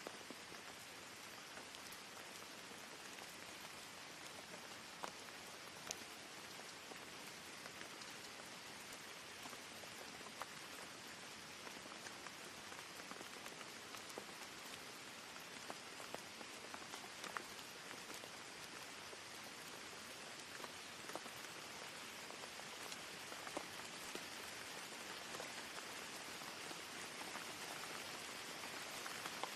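Steady rain, an even hiss with scattered sharp drop ticks, growing slightly louder toward the end.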